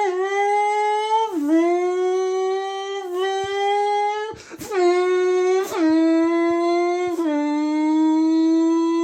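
A person's voice imitating a racing car engine by mouth: a held, buzzing tone whose pitch drops briefly and climbs back every second and a half or so, like a car shifting up through the gears, with a short break about halfway through.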